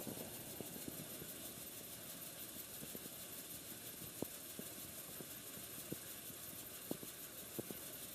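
Threshing machine running steadily, with a few light knocks scattered through.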